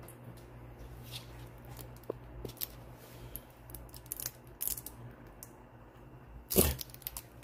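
Small clicks and crinkles of an acrylic paint tube being handled and squeezed out onto a palette, the tube nearly used up so the paint comes out with difficulty. A louder knock comes about six and a half seconds in.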